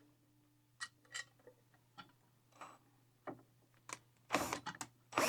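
Small bolts being set back into a ceiling fan's metal cover and tightened: scattered light clicks and taps, with a louder scrape of handling about four seconds in and again near the end.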